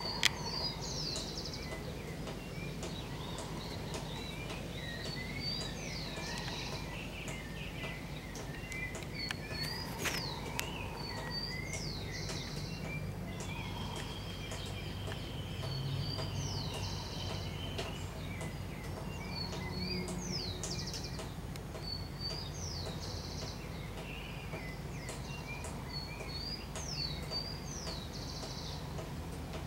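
Birds singing outdoors: one repeats a short phrase of high chirps ending in a quick buzzy trill about every two seconds, with softer, lower chirps between, over a low steady rumble.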